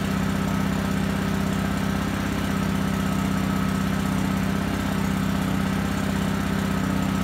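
WEN 56203i inverter generator's small four-stroke engine running steadily while still warming up after a cold start, with the choke being eased in partway to bring the revs up.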